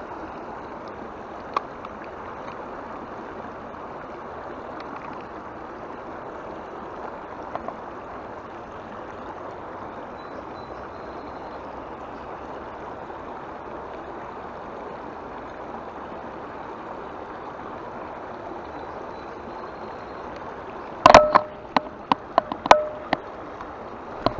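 Steady sound of river water running over a shallow ford. Near the end comes a quick cluster of sharp clicks and knocks as the plastic toy fishing reel is handled.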